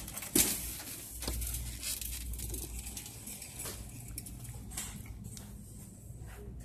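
Plastic shopping cart being pushed, rattling with scattered clicks and knocks, and a sharp loud knock about half a second in. A steady low electrical hum runs underneath.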